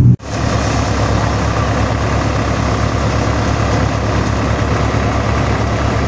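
Tractor engine running steadily, powering a paddy threshing machine, with an even low beat from the engine under a steady mechanical din of the thresher.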